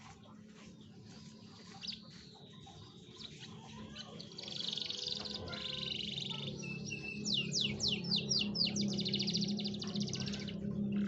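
Canary song used as a lure recording to set other canaries singing: faint notes at first, then from about four seconds in loud trills and rapid repeated notes, a quick run of sweeping whistles, and a fast rolling trill that stops shortly before the end, over a steady low hum.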